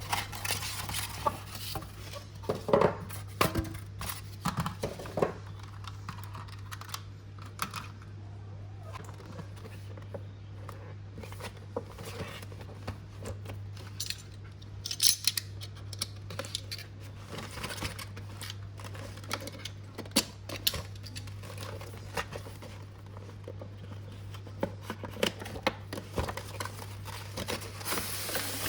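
Unboxing a diecast model car: scattered sharp clicks, taps and short rustles of packaging and the model being handled, over a steady low hum.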